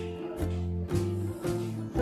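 Background music with plucked guitar and bass, chords changing about every half second.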